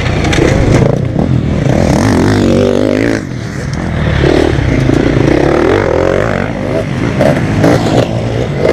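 Motocross bike engine revving hard and easing off with the throttle, with a brief drop about three seconds in. Knocks and a clatter near the end come as the bike goes down in the dirt.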